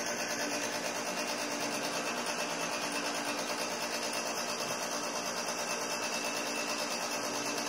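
A steady mechanical whir that does not change.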